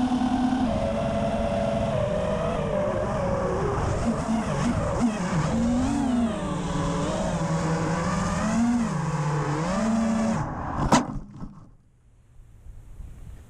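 5-inch FPV quadcopter's electric motors and props whining, heard from the onboard camera, the pitch rising and falling with throttle changes. The sound stops abruptly with a sharp click near the end, leaving only faint background.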